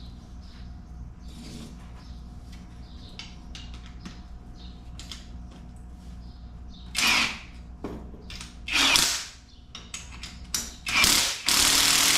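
Handheld electric power tool run in three short bursts, driving a coil-spring compressor's screws to compress a car's front strut spring. Faint tool-handling clicks come first; the bursts start about seven seconds in, and the last and longest runs on at the end.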